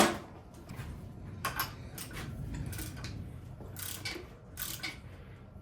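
Click-type torque wrench clicking sharply right at the start as it reaches torque on a Honda D16 connecting-rod bolt. A handful of scattered metal ticks and knocks from the wrench and engine parts follow.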